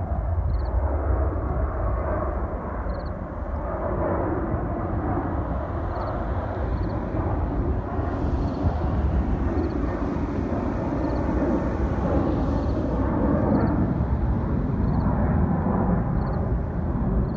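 Jet airliner taking off and climbing out: a steady jet roar over a deep rumble, swelling a little in the second half. Faint high chirps repeat about once a second.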